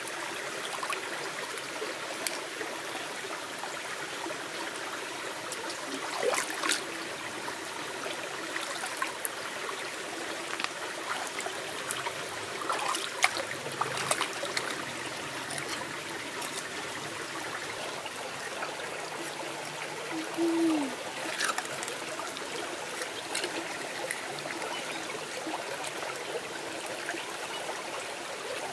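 Shallow stream trickling steadily over stones, with a few sharp clicks and splashes as large oyster shells are rinsed and rubbed by hand in the water. About two-thirds through there is a short low squeak that falls in pitch.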